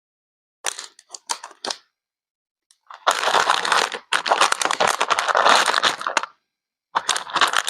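Crinkling, crackling handling noise: a few short crackles, then a long dense stretch of crackling, then more crackles near the end.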